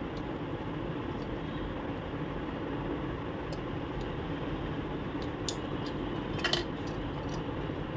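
A few short, faint plastic clicks as the ink tubes and their clip are worked loose from an Epson L130 inkjet printer's ink tank unit, over a steady background hum.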